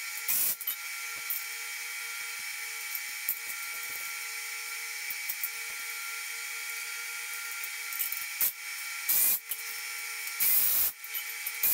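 Cordless drill spinning in short bursts, once near the start and twice near the end, over a steady background hum.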